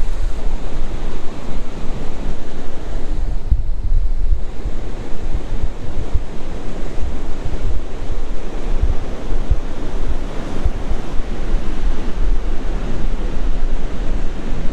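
Ocean surf washing onto a beach, with gusty wind buffeting the microphone in a strong low rumble.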